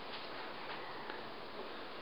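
Quiet, steady background hiss of room tone, with no distinct sound standing out.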